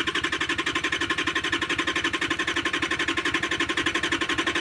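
Off-road 4x4's diesel engine idling steadily with a rapid, even beat, just restarted and running on diesel fed straight from the tank with the fuel filter bypassed.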